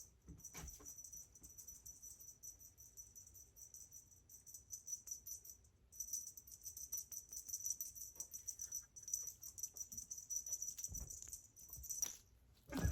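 Small bell jingling in quick, continuous shakes as a kitten plays, stopping briefly about halfway and again near the end.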